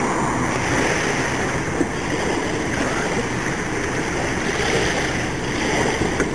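Steady wash of wind and sea water.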